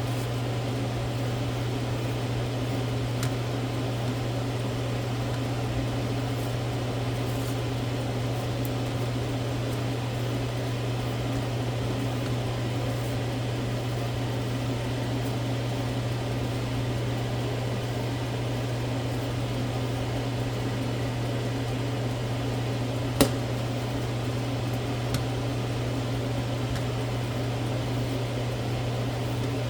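Steady machine hum of a running appliance, with a sharp click about 23 seconds in and a fainter click two seconds later.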